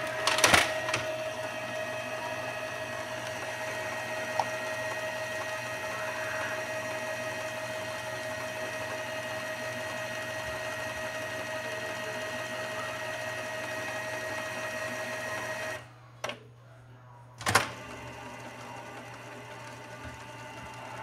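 Canon PIXMA G3411 inkjet printer: a sharp plastic clack as the scanner unit is lifted open, then its mechanism runs with a steady whirring hum for about fifteen seconds and stops abruptly. A knock and a sharp click follow.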